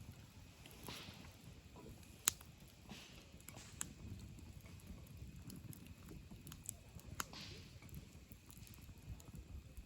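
Wood campfire burning with a low rumble of flame and scattered sharp crackles and pops, the loudest pop about two seconds in.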